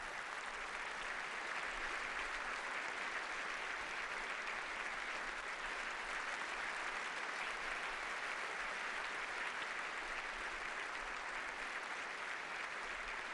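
Large audience applauding, a steady sound of many hands clapping.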